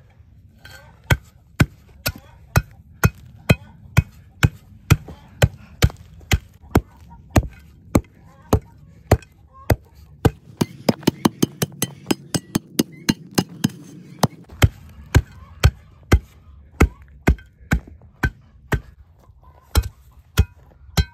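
Steel hand tamper striking lumps of wood charcoal on a canvas cloth over hard clay ground, crushing them into small bits to make biochar. The strikes are sharp and regular, about two a second, quickening to about four a second for a few seconds past the middle.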